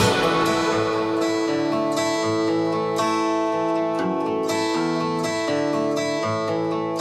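Background music led by a plucked acoustic guitar, its notes ringing on. The drums and bass drop out right at the start.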